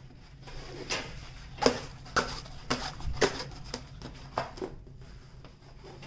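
Rolled diamond painting canvas with its plastic-coated cover sheet being uncurled and handled: stiff paper and film crinkling, in a string of sharp, irregular crackles.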